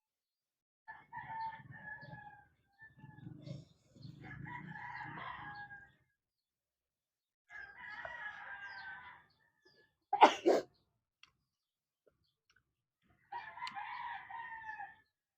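A rooster crowing four times, each crow a second or two long, a couple of seconds apart. A single sharp knock about ten seconds in.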